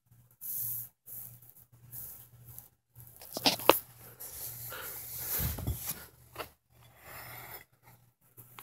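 Cloth rustling and rubbing as a cotton sock is pulled off a foot, in short scattered bursts. A few sharp clicks come about three and a half seconds in, and a low thump a little later.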